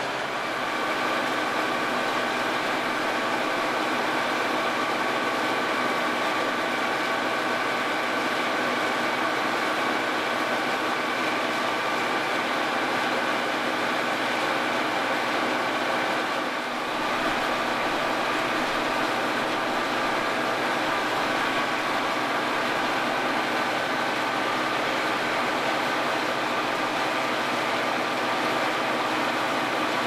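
New Holland TX65 combine harvester running steadily at working speed while unloading barley through its auger into a trailer: a constant mechanical drone with several steady, high whining tones. There is a brief dip in level about 17 seconds in.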